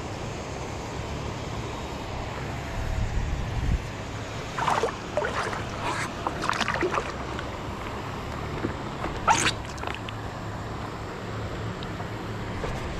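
Water splashing as bare feet kick in the river beside a paddle board, a few short irregular splashes about halfway through and a sharper one shortly after, over a steady low rumble of wind and moving river water.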